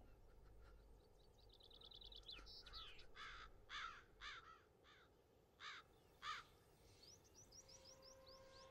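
Faint bird calls. A quick run of small chirps comes first, then about seven harsher calls in the middle, then rapid chirps again near the end.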